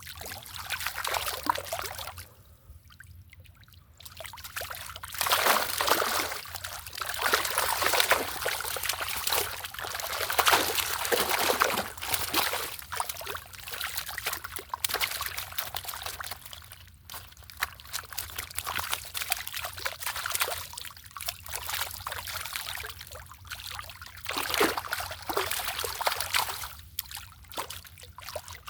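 Water splashing and trickling in irregular surges that swell and fade throughout.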